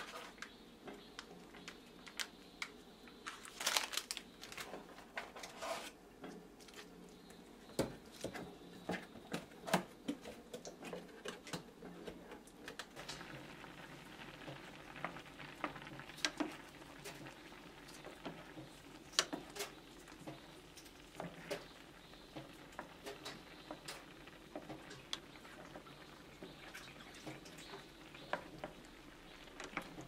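Packaging rustled and crinkled as a tteokbokki kit is unpacked, with several short bursts in the first few seconds. This is followed by tteokbokki sauce simmering and bubbling in a pan while a wooden spatula stirs and taps against it.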